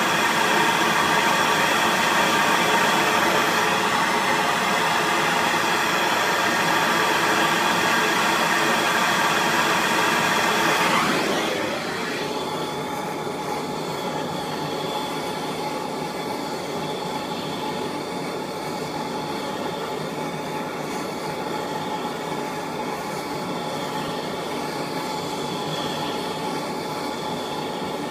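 Steady hiss from a hose-fed torch heating the Loctite-locked clutch hub nut, shut off about eleven seconds in. A quieter steady mechanical hum with faint tones carries on afterwards.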